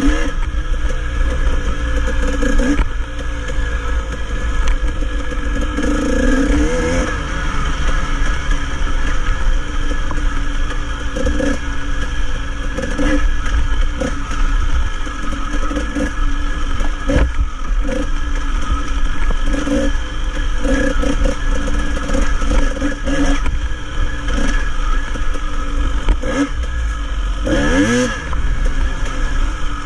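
Dirt bike engine running on a rough trail, the throttle opened and closed over and over, with a clear rise in revs about six seconds in and again near the end. A steady low rumble of wind and engine sits underneath throughout.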